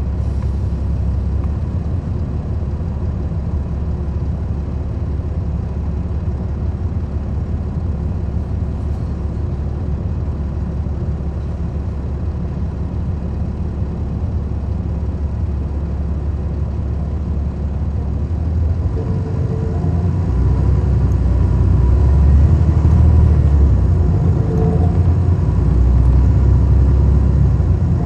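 Cummins ISL9 inline-six diesel engine of a 2011 NABI 40-SFW transit bus running underway, heard from inside at the rear as a steady low rumble. About two-thirds of the way in it grows louder and heavier, with a faint whine coming in.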